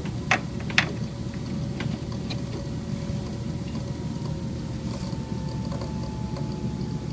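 EK D5 water-cooling pump running with a steady hum and a slight rattle of faint irregular ticks, caused by the impeller moving around on a bad bearing. Two sharp clicks stand out about half a second in.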